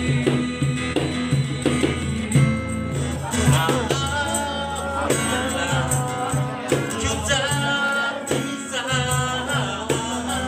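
Live acoustic music: singing over a strummed acoustic guitar, with a light hand-percussion rattle in the rhythm.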